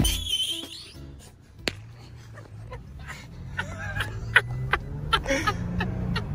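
Steady low hum of a car driving, heard from inside the cabin, with scattered clicks and faint voices. Music cuts off at the very start.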